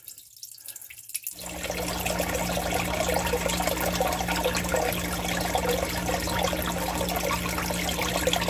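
Groundwater forced in by heavy rain, streaming through small holes in the side of a sump pit basin and splashing into the pooled water below. Faint at first, it turns to a louder steady splashing about a second in, with a steady low hum underneath.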